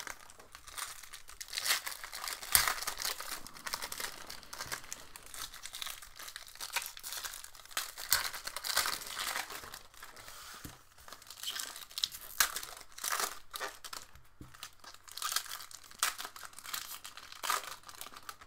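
Trading card packs being opened by hand: foil wrappers crinkling and tearing in irregular bursts.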